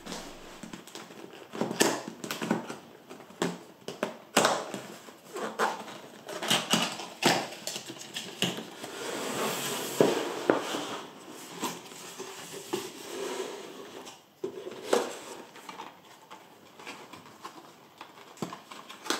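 Cardboard packaging being opened and handled: irregular scraping and rustling of cardboard with many sharp taps and knocks, the loudest about halfway through.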